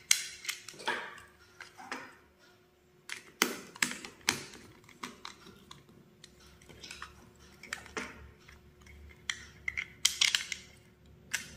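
Irregular clicks and taps of a plastic bulb holder being handled and worked on with a small tester screwdriver at its terminal screws, a few of the knocks sharper than the rest.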